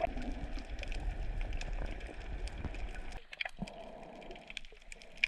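Water heard during snorkelling: a low rumble with many scattered crackling clicks, dropping abruptly to a quieter crackle about three seconds in.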